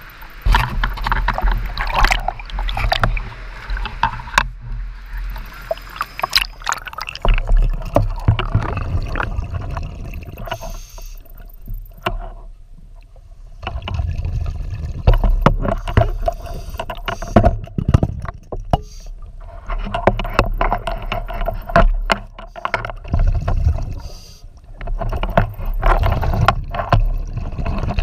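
Scuba regulator breathing heard underwater: long rushes of exhaled bubbles every few seconds with quieter gaps between, and many sharp clicks and knocks of gear against rock.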